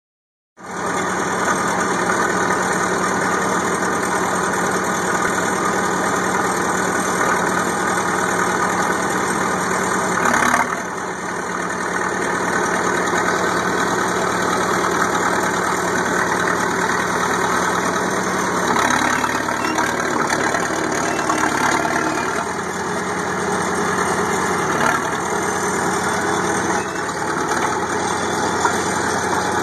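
Caterpillar 933 crawler loader's diesel engine running steadily while the machine is driven with its bucket raised. There is a brief louder knock about ten seconds in, and the engine note shifts about nineteen seconds in.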